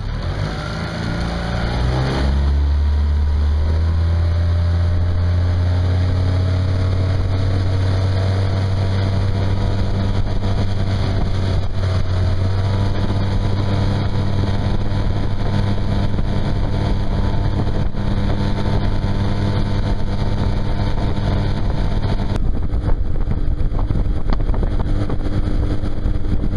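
Tohatsu four-stroke outboard motor on a small boat throttling up from idle over the first couple of seconds, then running steadily under way. Near the end its engine tone gives way to a rushing noise.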